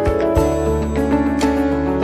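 Soft background music of sustained pitched notes over a low bass note that comes in about half a second in.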